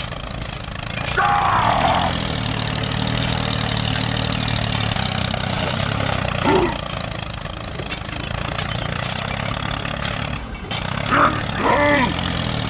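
Small tractor engine running steadily under load, with a brief dip near the end. Short voice-like calls are heard over it about a second in, around the middle and near the end.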